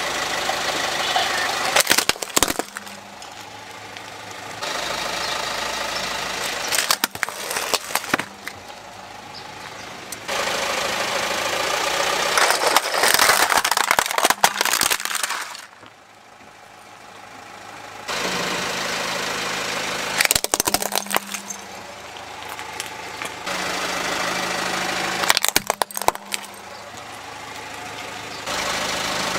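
A car engine running at idle while its tyre rolls slowly over plastic toys. Sharp cracking and crunching of plastic breaking under the tyre comes in clusters several times, with abrupt jumps between takes.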